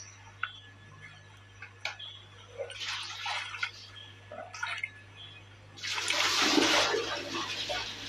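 Water splashing and sloshing around a person wading and lunging forward in a shallow stream. It comes in a few bursts, with the biggest splash about six seconds in.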